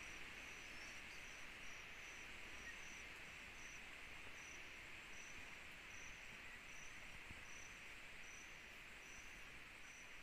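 Faint night insect chorus: a steady high hiss, with one insect's short high chirps repeating evenly about one and a half times a second.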